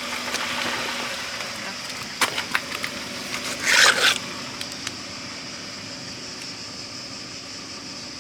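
A car's engine running and its tyres rolling, fading slowly. A few sharp cracks come about two seconds in, and a louder, half-second burst of crunching noise comes near four seconds in.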